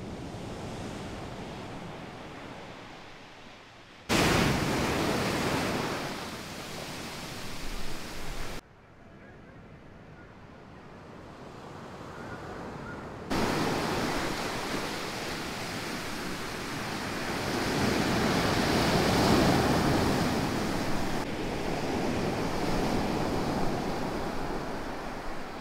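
Heavy surf: waves rolling in and breaking on a beach, the roar swelling and receding, with the sound jumping abruptly in level a few times.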